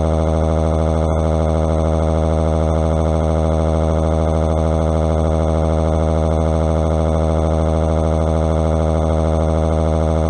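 A synthetic text-to-speech voice crying 'waaaa', held as one long monotone wail on a single steady pitch with no breaks, loud and buzzy like an alarm tone.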